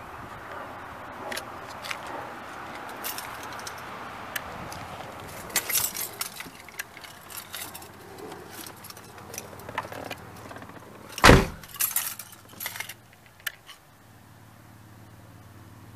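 Scattered clicks and rattles of handling inside a small car's cabin, with one loud thump about eleven seconds in, then a low steady hum.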